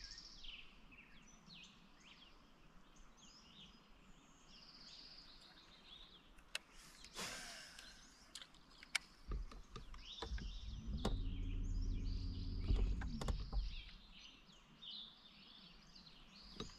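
Birds chirping and singing in the background, with an electric bow-mount trolling motor humming steadily for a few seconds past the middle and again near the end. A brief swish comes about seven seconds in, along with a few light clicks.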